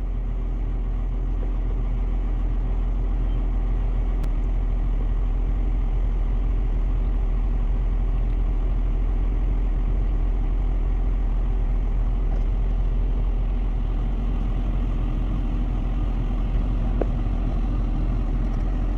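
A vehicle engine idling steadily with an even, low hum.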